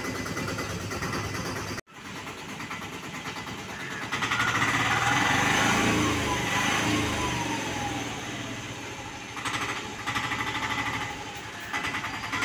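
A vehicle engine runs close by. It grows loud about four seconds in, then fades over several seconds with a falling pitch, like a vehicle passing. Under it is the steady mixed noise of a workshop yard.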